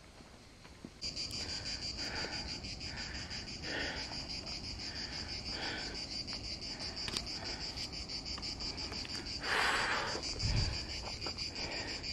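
A high-pitched chorus of insects, a steady, rapidly pulsing buzz that starts abruptly about a second in. A short noisy burst about ten seconds in is the loudest moment.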